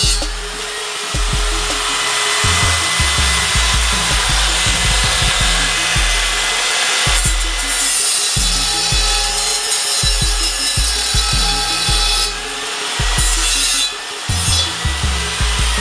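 Angle grinder with a sanding disc grinding and sanding the welded repair on the lip of an alloy wheel rim: a loud, steady hiss of abrasive on metal that drops away briefly a few times.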